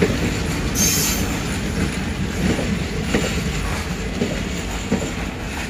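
Indian Railways passenger coaches rolling slowly past on an arriving express, their wheels clacking irregularly over rail joints over a steady rumble. A brief high squeal comes about a second in, and the sound eases slightly as it goes on.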